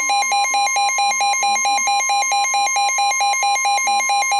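NOAA Weather Radio's steady 1050 Hz warning alert tone, overlaid with a weather radio receiver's electronic alarm beeping rapidly, about five beeps a second.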